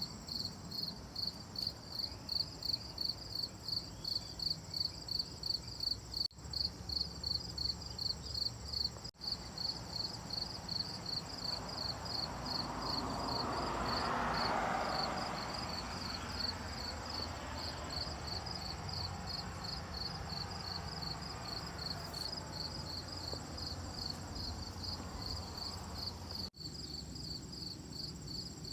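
Cricket chirping steadily in a regular rhythm of about two to three chirps a second, with a continuous higher insect trill behind it. About halfway through, a soft rushing sound swells up and fades away again.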